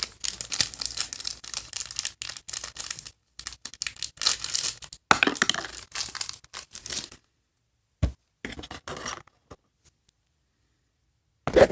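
Small toy packaging being torn open and crinkled by hand: a run of tearing and rustling for about seven seconds, then a single soft thump and a few faint rustles.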